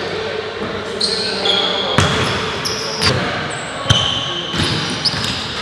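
A basketball bouncing on a hardwood gym court, about once a second, with short high sneaker squeaks in between and players' voices in the background.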